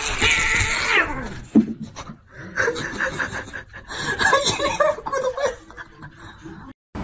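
A cat cries out with a falling pitch as an adult calico swats at a small black kitten, with a brief loud thud about one and a half seconds in. A person laughs in short rhythmic bursts through the middle.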